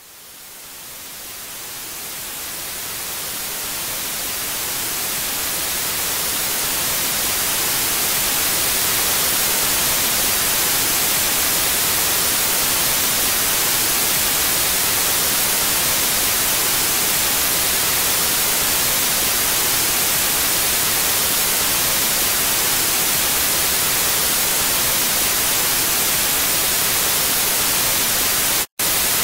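Steady television static hiss, the white noise of an untuned set's 'snow'. It fades in over the first several seconds, holds level, and cuts out briefly near the end.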